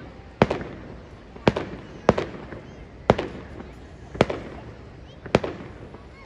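Aerial fireworks shells bursting: six sharp bangs about a second apart, each trailing off in an echo.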